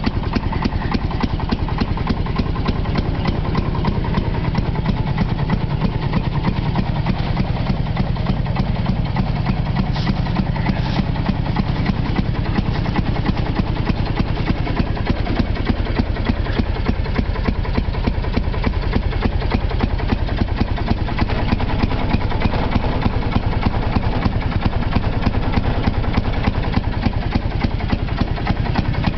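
Fairmont railroad speeder car's engine running at a steady idle, its firing beats coming fast and even, on its first run in ten years.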